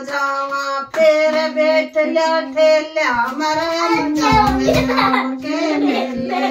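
A child singing long, held notes without clear words, the pitch stepping between notes and gliding once in the middle.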